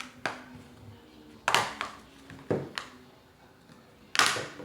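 Handling noise from a tablet being taken apart: about five sharp clicks and taps of hard plastic and small tools, the two loudest about a second and a half in and near the end.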